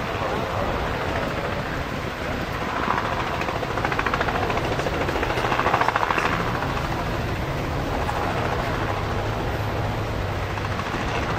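Helicopter droning steadily overhead, its rotor pulsing a little louder around the middle, over a steady rush of wind and surf.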